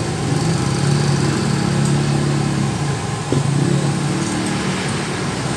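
Motorcycle engines of passing road traffic running steadily close by, one vehicle's sound giving way to another's about three seconds in.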